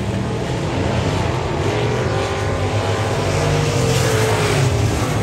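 Dirt-track race car engines running around the oval, several at once, their pitch sliding up and down as they accelerate and pass.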